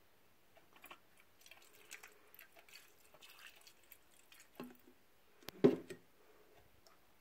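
Liquid poured from a plastic bottle into a shallow metal tin over small toy car parts, trickling and dripping faintly and unevenly. Near the end comes a single loud knock as the bottle is set down on the wooden bench.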